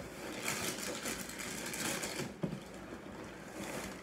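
Cheerios Oat Crunch cereal poured from the box into a clear plastic bowl: a dense rattle of many small dry pieces hitting plastic, thinning out about halfway through.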